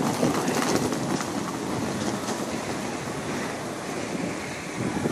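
Wheeled suitcase rattling steadily over the stone paving of a railway platform, against the general noise of a train station with a train standing at the platform.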